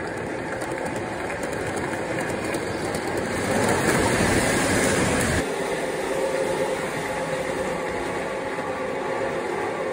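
Lionel O-gauge model train cars rolling past on metal track, a steady rumble that swells about three and a half seconds in and drops off suddenly as the last cars clear. A quieter, steady rumble of the approaching model locomotives follows.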